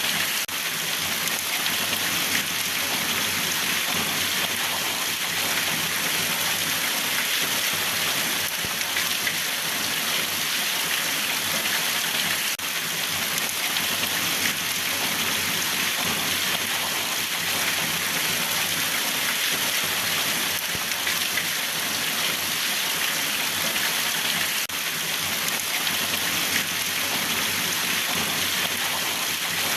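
Steady rain falling, an even hiss of drops on a surface with no let-up.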